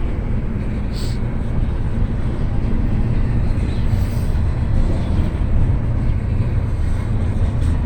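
Intermodal freight train's cars rolling past at low speed, a steady rumble, with wind buffeting the microphone.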